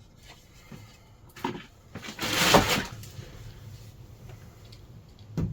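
Handling noises: a knock, then a louder scraping rustle lasting under a second, and a thump near the end.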